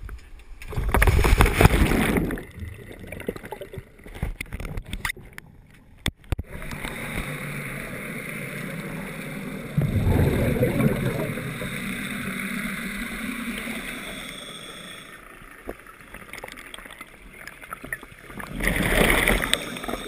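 Scuba diving heard underwater: loud bursts of rushing, bubbling noise from a diver's exhaled regulator bubbles about a second in, around ten seconds and near the end, with a steady hum in between.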